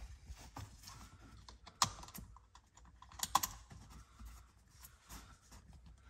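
Seat belt hardware, the metal latch plate, buckle and clamp, clicking and rattling as the rear seat belt is handled and buckled in: scattered light clicks, the sharpest about two seconds in and just after three.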